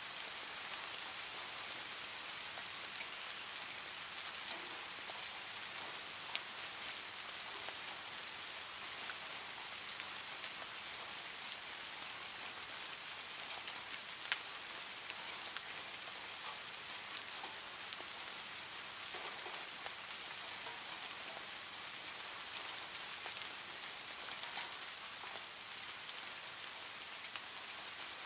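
Steady heavy rain on a tin roof: a dense, even hiss of drops with scattered sharp ticks, and two louder single drop hits about six and fourteen seconds in.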